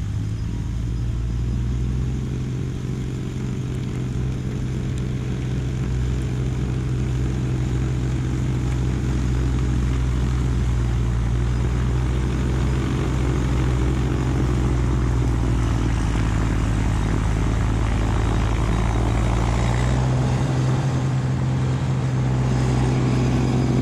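Kubota LX2610 compact tractor's three-cylinder diesel engine running steadily under load, its front-mounted snowblower running and throwing snow. The sound grows louder as the tractor comes closer and passes near the end.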